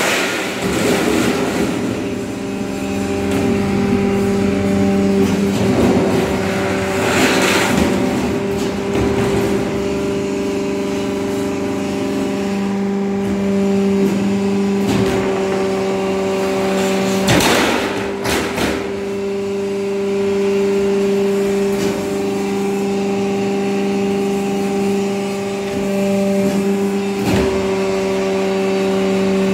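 Bending press machine running with a steady motor hum, broken by a few sharp clanks.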